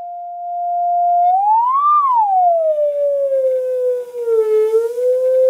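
Steady pure tone from a tone generator played through a speaker to vibrate a sand-covered membrane. About a second in, the pitch sweeps up, falls back below where it started, dips lower still and then settles on a steady, lower tone.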